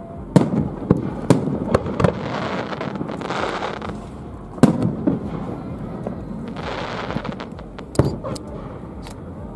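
Fireworks display: aerial shells bursting in a string of sharp booms, the loudest about four and a half seconds in and again at eight seconds.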